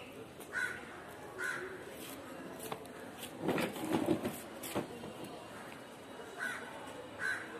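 Crows cawing: short harsh calls in pairs, two near the start and two near the end, with a brief louder noise in between about three and a half seconds in.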